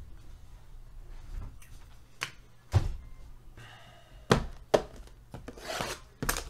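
Sealed, shrink-wrapped trading card boxes being put down and handled on a padded table mat: several separate dull thunks, with a short rustle of plastic wrap near the end.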